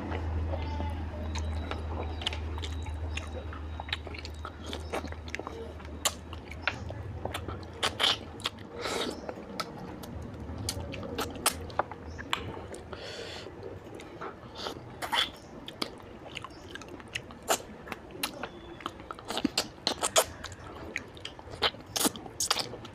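Close-miked eating by hand: wet chewing and smacking with many sharp mouth clicks and occasional crunches as fried fish head, mutton fat curry and rice are bitten and chewed. A low rumble sits under the first few seconds.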